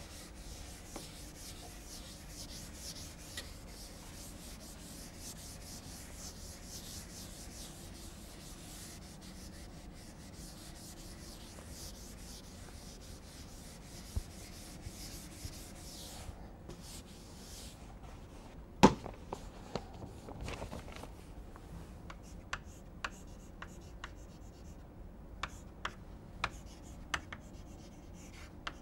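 Chalkboard duster rubbing across the board in repeated strokes, wiping off chalk writing. About 19 seconds in comes a single sharp knock, and near the end short taps and scratches of chalk as writing starts on the board.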